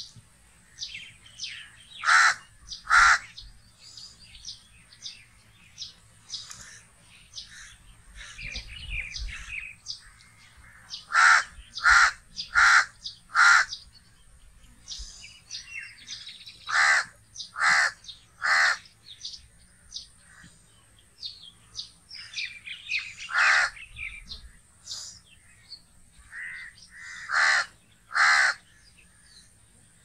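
House crow cawing in short runs of harsh caws: a pair early, four in a row about a third of the way in, then three, a single caw, and a last pair near the end. Fainter short bird calls come in between.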